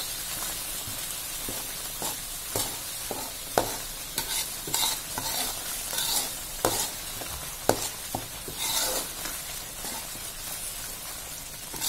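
Thick ground chili spice paste sizzling as it fries in a metal wok, stirred with a metal ladle that scrapes and clinks against the pan at irregular moments. The paste is being sautéed with lemongrass, galangal and leaves until fragrant and cooked.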